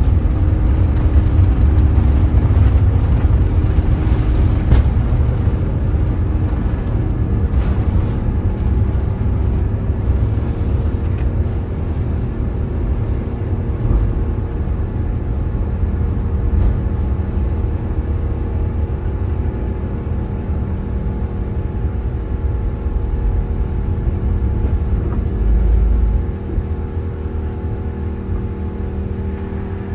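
Airbus A350-900's Rolls-Royce Trent XWB jet engines at takeoff power, a loud steady running with a heavy low rumble that eases gradually and drops off sharply near the end.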